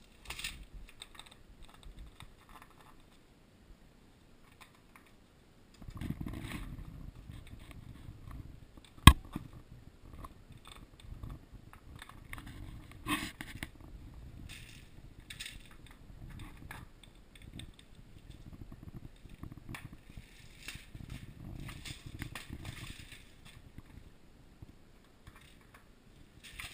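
A ferret nosing and pushing a clear plastic jar across floor tiles, which makes irregular bursts of scraping and clattering. There is a brief lull early on and a single sharp knock about nine seconds in.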